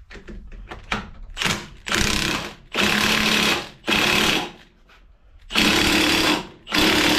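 Cordless impact wrench hammering on the forcing screw of a ball joint press, in about six bursts of up to a second each. It is trying to push a rusted, seized ball joint out of a Jeep JK steering joint, and the joint is not moving.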